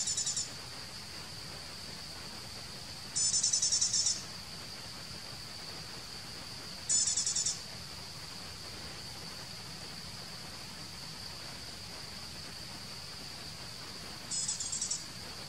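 Forest insects: a steady high-pitched insect drone, broken four times by short bursts of rapid, high trilling chirps.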